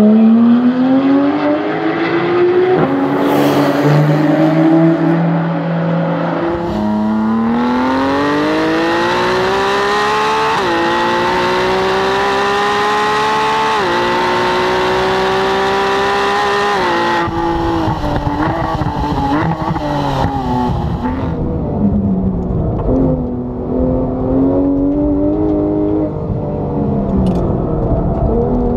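Porsche 991 GT3 flat-six with a Cup exhaust under hard acceleration. The pitch climbs steadily through each gear and drops sharply at quick upshifts, three of them between about 10 and 17 seconds in. After that the engine sound turns rougher and rises and falls with the throttle.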